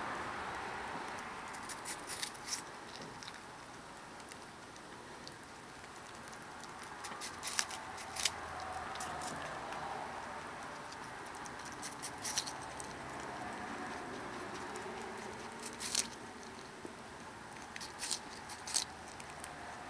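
A Mini Rex rabbit biting into and chewing a hand-held apple: crisp crunches come in short clusters several times, over a steady faint hiss.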